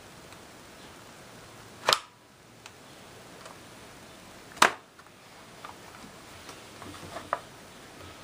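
Two sharp clicks about three seconds apart, then several lighter clicks near the end.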